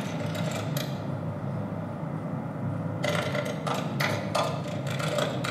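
A low steady hum under scattered short clicks and knocks, which come more often in the second half.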